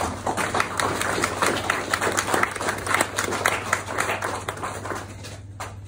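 A crowd of people applauding, many hands clapping at once, dying away near the end.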